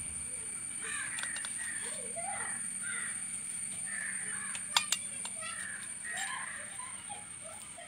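Crows cawing repeatedly in the background. A little under five seconds in come two sharp clicks as the knife tip taps the glass plate.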